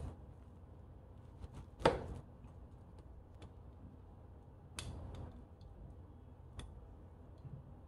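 A kitchen knife knocks once against a plastic cutting board about two seconds in, cutting a dried jujube. Then come a few faint clicks and a short rasp as the knife works around the jujube's pit in the hand.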